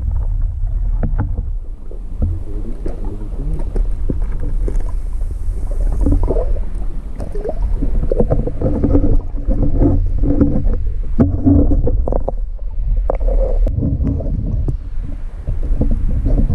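Muffled water sloshing and gurgling heard through a camera held underwater as a fish is moved about on a lip-grip and let go: a dense low rumble with scattered small knocks.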